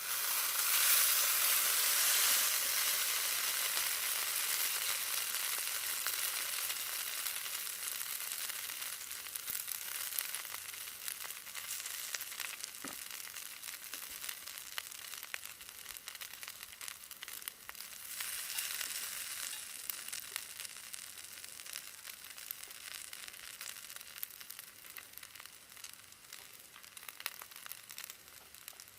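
Yakisoba frying in a hot cast-iron skillet: a loud sizzle that comes in suddenly as the food hits the pan, with fine crackling all through, slowly dying down.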